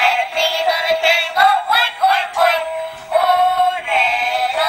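Music: a high melody of short notes, with one longer held note a little past the middle.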